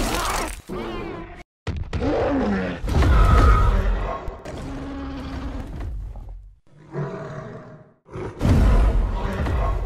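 Creature roars and grunts from giant apes and a monster, mixed with music and cut into several short pieces with brief silent gaps about a second and a half in and near the end.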